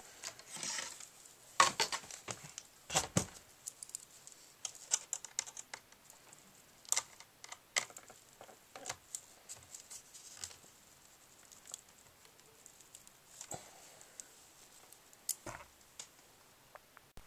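Irregular light clicks and taps of a small screwdriver and hands working at the screen-frame screws of a Dell XPS M1530 laptop, with a couple of duller knocks as the laptop is handled.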